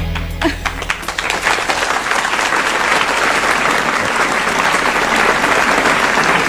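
Studio audience applauding, building up over the first second or two and then holding steady.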